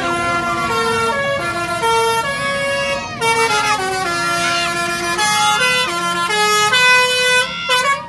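Bus's basuri melodic horn (telolet horn) playing a tune of held notes that step up and down in pitch, stopping near the end.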